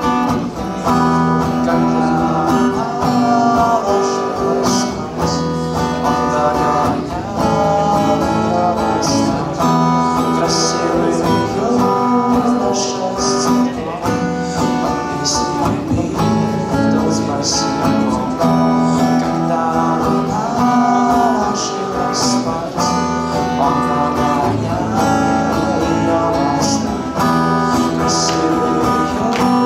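A man singing a song while strumming and picking an acoustic guitar, as a solo live performance.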